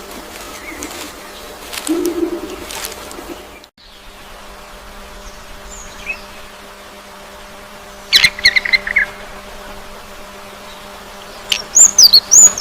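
Birds calling: a low call about two seconds in, then clusters of sharp, high chirps about eight seconds in and again near the end, over a steady low hum. The sound cuts out briefly at about four seconds.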